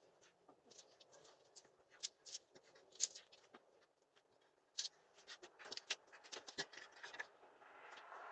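Faint, scattered clicks and scuffs, coming more thickly in the second half.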